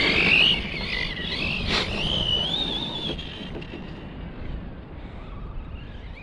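Redcat Kaiju 1/8-scale electric monster truck's Hobbywing brushless motor whining as it is driven on 6S, the pitch wavering with the throttle, with a sharp knock about two seconds in. The whine fades after about three seconds, leaving wind and a low rumble.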